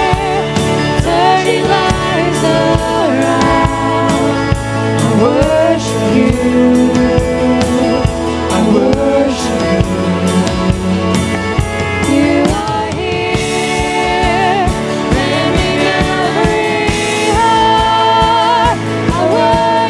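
Christian worship song: a singer with a band, the voice holding and gliding between notes over a steady drum beat.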